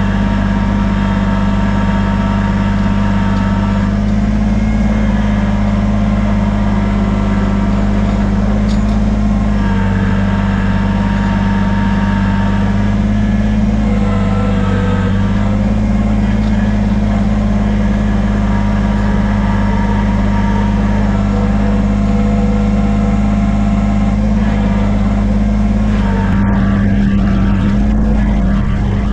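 Kubota BX23S compact tractor's three-cylinder diesel engine running steadily under way, heard close from the driver's seat, its note shifting slightly a few times.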